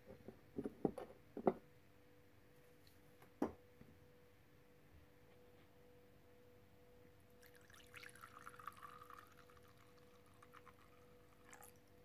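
Liquid poured from a glass bottle into a ceramic cup, splashing for about two and a half seconds starting about seven and a half seconds in. A few sharp knocks and clinks come in the first second and a half, and one more about three seconds in. A faint steady hum runs underneath.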